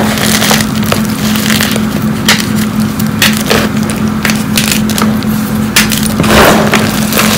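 Hands crushing and squeezing hard lumps of gym chalk, a dense, irregular run of sharp crunches and crackles.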